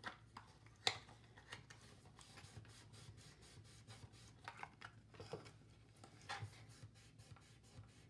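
Faint handling of a cardstock box: fingers folding and pressing its paper tabs, with a few soft taps and one sharper click about a second in, over a low steady room hum.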